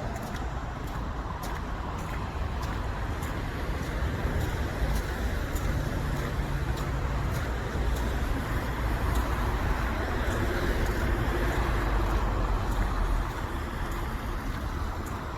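Road traffic running steadily, a vehicle passing loudest from about ten to thirteen seconds in, with footsteps crunching in snow at about two steps a second.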